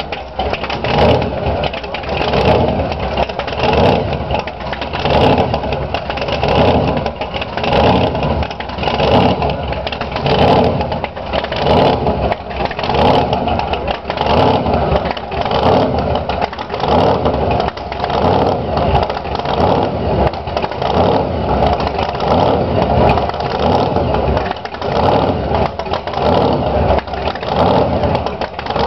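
A car engine being revved over and over, its pitch and level rising and falling about once a second.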